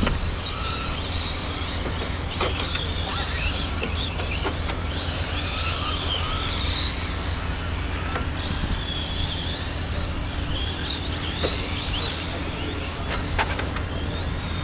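Electric radio-controlled Euro Truck race cars driving laps: the whine of their motors and gears rising and falling in pitch as they speed up and slow down for the corners, several overlapping, over a steady low rumble.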